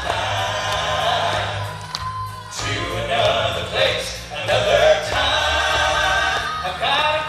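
Southern gospel vocal group singing in close harmony over instrumental accompaniment with a steady bass line.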